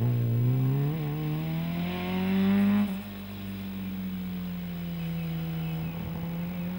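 Fiat 127 Giannini rally car's four-cylinder engine accelerating hard, revs climbing steadily for about three seconds. Then the revs and loudness drop abruptly, and the engine runs on at a lower, steadier pitch as the car pulls away.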